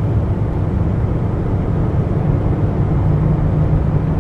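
Steady low rumble of a car driving, heard from inside the cabin: engine and road noise with no distinct events.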